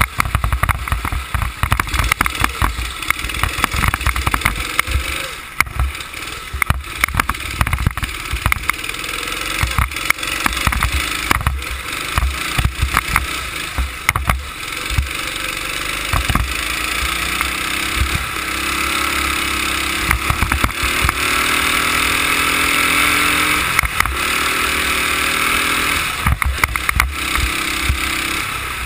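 Go-kart engine running hard on a lap, its pitch climbing as it accelerates from about halfway through and dropping off near the end, with rough low buffeting throughout.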